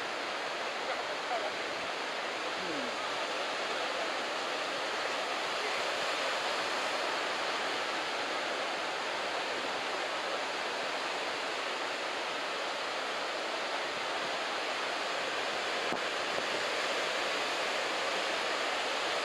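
Steady, continuous noise of head-high typhoon-swell surf breaking and washing along the beach.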